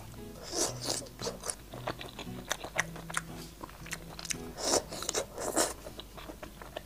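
Close-miked eating sounds: biting into and chewing a piece of braised fish roe cake, with wet mouth clicks and soft crunches. A few short hisses break in, one near the start and two about two-thirds of the way through.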